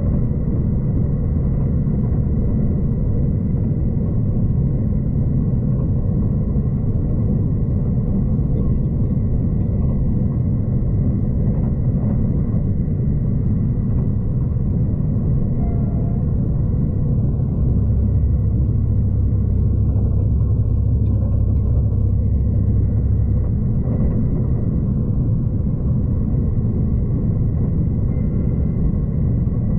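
V/Line passenger train running along the track, heard from inside the carriage: a steady low rumble of wheels and running gear, growing louder for a few seconds in the middle, with a faint steady high tone above it.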